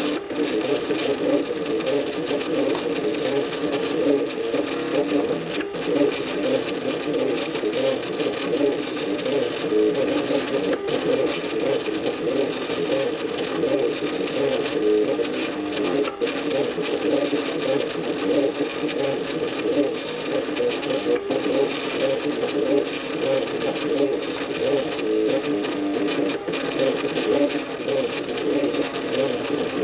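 MakerBot Cupcake CNC 3D printer running, its stepper motors whining in rapidly changing tones as they shift the build platform back and forth under the extruder.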